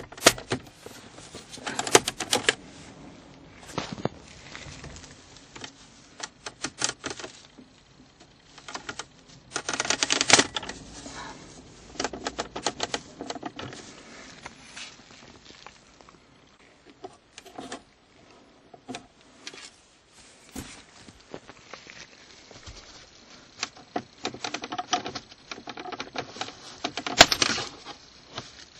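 Plastic center-console side trim panel of a 2009 Toyota Corolla being pried and worked free by hand: an irregular run of clicks, knocks and scrapes as its clips let go and the plastic rubs against the console, with a longer scraping rattle about ten seconds in and another near the end.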